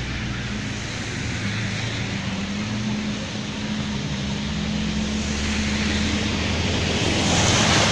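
Floodwater rushing over a street, mixed with the steady hum of a motor vehicle engine; the noise grows louder near the end.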